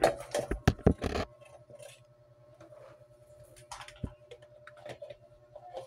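Thin plastic bottle being handled and pressed against a wall: a quick run of sharp plastic clicks and knocks in the first second or so, then faint scattered taps and rubbing.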